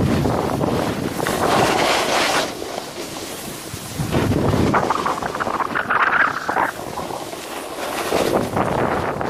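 Snowboard running down a groomed piste, the board scraping over the snow in swelling and fading surges, mixed with wind noise on the microphone.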